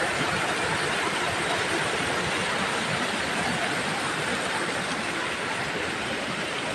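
Waterfall pouring over rocks into a pool: a steady rush of falling water.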